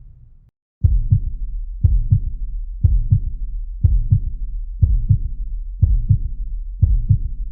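Heartbeat sound effect: a steady lub-dub, two low thumps close together repeating about once a second, starting about a second in after a low rumble fades out.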